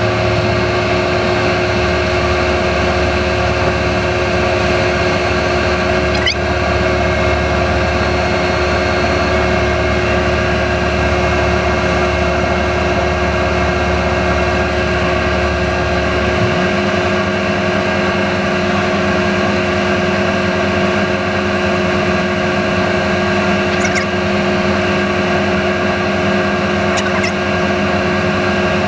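Heavy equipment engine running steadily under load, its low note shifting about 16 seconds in as the engine speed changes.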